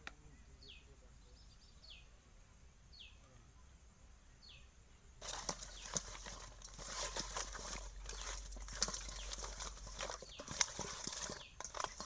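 A few faint short chirps over a quiet background. About five seconds in, a steady rustling and clattering full of small clicks starts abruptly.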